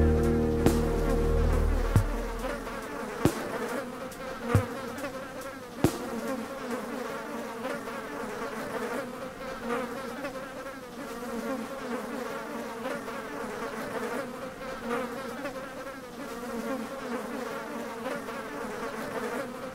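Music fades out over the first two seconds, leaving a steady buzzing drone that wavers slightly in pitch. Five sharp clicks come about a second and a quarter apart in the first six seconds.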